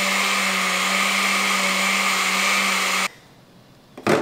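Countertop blender running steadily as it blends a fruit smoothie, then cutting off suddenly about three seconds in. A single sharp knock follows near the end.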